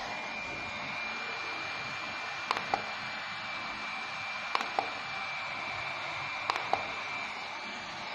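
At-home IPL hair removal handset running, its cooling fan giving a steady hiss with a thin high whine. Three times, about two seconds apart, it gives a pair of sharp clicks as it fires a flash.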